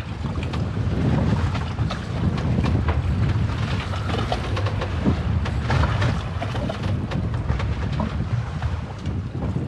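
Wind rumbling on the microphone over the wash of water around a boat, with scattered small knocks and splashes.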